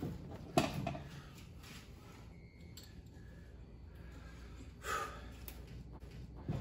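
Mostly quiet workshop with a single sharp knock, like a steel tool set down or struck, about half a second in, and a brief soft rustle about five seconds in.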